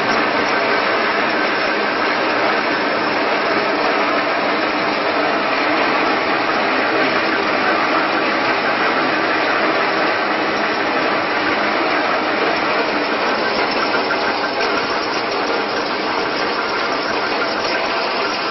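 Electric roller flaking machine running steadily while pressing wheat into flakes, a dense, even mechanical noise that holds at one level throughout.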